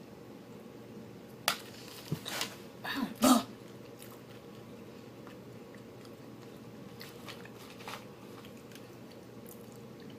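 Close-up eating sounds: a cluster of short bites and chewing noises between about one and a half and three and a half seconds in, the last the loudest. Little else follows.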